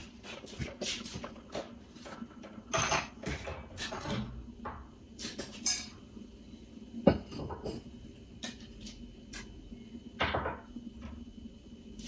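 Scattered clinks, knocks and rustles of dishes and decor items being handled and moved around, with one sharp knock about seven seconds in.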